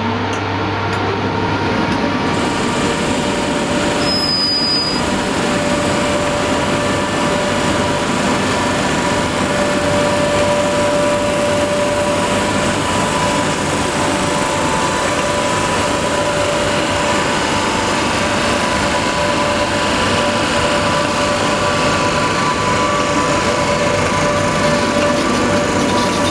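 Class 87 electric locomotive 87002 moving slowly past at close range: a loud, steady running noise from its motors and cooling fans, with two steady held tones through it.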